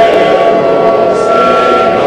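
Loud siren-like alarm sound: several steady tones held over a rough, noisy hiss, with a higher tone coming in about halfway through.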